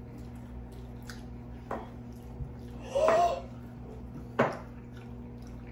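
Mouth sounds of people eating: a few short, sharp lip smacks and clicks, with one brief voiced murmur about three seconds in, over a steady low hum.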